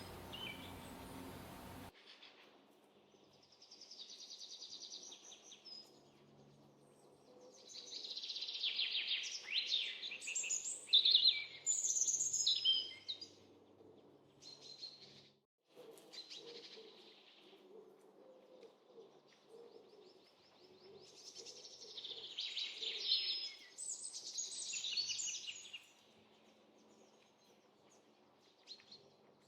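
Songbirds chirping and singing in several bouts of quick, high, twittering song, with short pauses between them.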